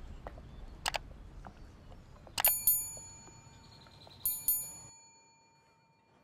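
Bright bell-like ding-ding chime of an outro sound effect, struck twice in quick succession, then again about two seconds later, each pair ringing out. Before it there is low background ambience with a couple of short sharp clicks, which cuts off abruptly near the end.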